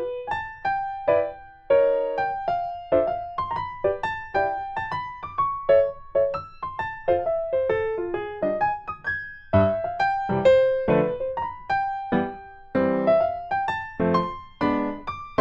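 Light piano music: a quick melody of separate notes over chords, a few notes a second, with fuller chords near the end.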